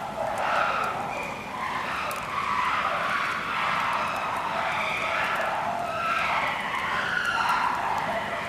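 Chimpanzees calling loudly and without a break: overlapping high-pitched calls from an agitated group.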